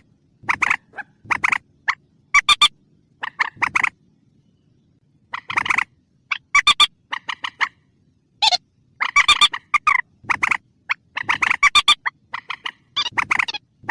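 Rail (burung mandar) calling in bouts of quick, harsh clucking notes. The bouts are separated by short pauses. It is a recorded lure call played to attract rails.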